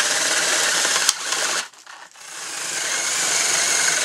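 Electric drill boring into a wooden branch with a spade bit, running steadily. A sharp click about a second in, then the drill stops briefly and spins back up to run again.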